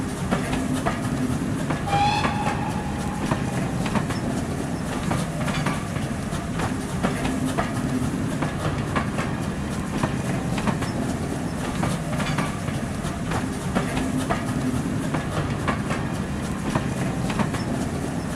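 Passenger train passing at speed: a steady rumble of the carriages with wheels clicking over the rail joints, and a short high-pitched tone about two seconds in.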